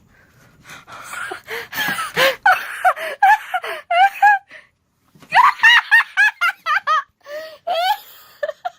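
High-pitched laughter in quick runs of short rising-and-falling notes, stopping briefly about halfway through and then starting again.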